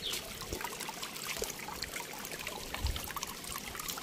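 Water trickling steadily, with scattered faint clicks.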